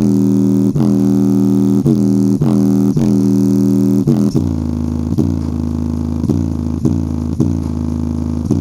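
JBL Flip 5 portable Bluetooth speaker in its low-frequency bass mode, grille off, playing a bass-heavy track at 90–100% volume. Deep bass notes are struck about twice a second, and about four seconds in the bass line drops lower.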